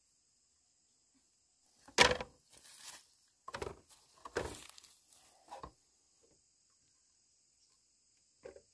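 A handful of knocks and clatters of bamboo being handled, the sharpest and loudest about two seconds in and a small one near the end, over a steady high chirring of insects.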